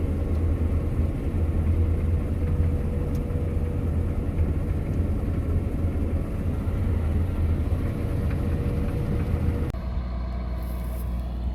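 Combine harvester running steadily while reaping a thick, heavy barley crop: a loud engine and threshing drone with a low hum. About ten seconds in it changes abruptly to a quieter, lower steady hum.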